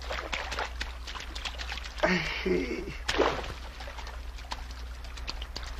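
Water splashing and sloshing in short crackling bursts, as a person wades through a river. A brief voice-like cry comes about two seconds in, and another sharp splash about a second later.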